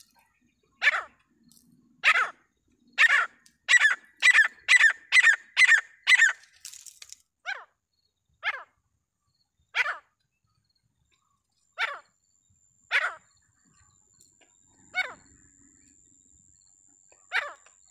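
Francolin (teetar) calling: a series of short, harsh notes, about one a second at first, quickening to a run of about two a second a few seconds in, then slowing to single notes every second or two. A faint steady high whine comes in about two-thirds of the way through.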